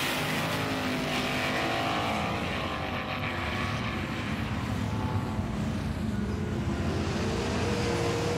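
Race car engine sound, steady, with a pitch that rises and falls, laid over a diecast car race as an added sound effect rather than coming from the toy cars themselves.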